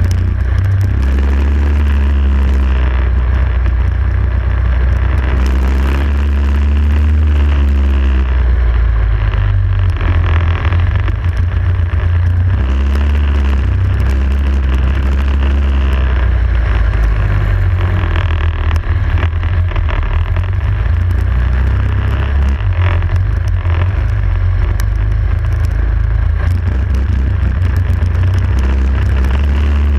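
Racing kart engine heard from the kart's onboard camera, running hard the whole time and rising in pitch several times as it accelerates, then easing back, over a heavy steady low rumble.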